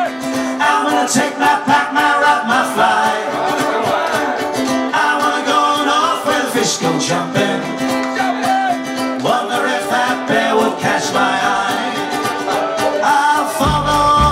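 Live folk-rock band playing, with strummed guitars and singing over a held note. Deep bass notes come in just before the end.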